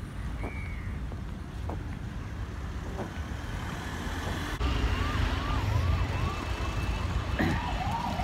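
Road traffic rumbling. About halfway through, a vehicle siren starts, sweeping rapidly up and down about two and a half times a second over heavier traffic noise.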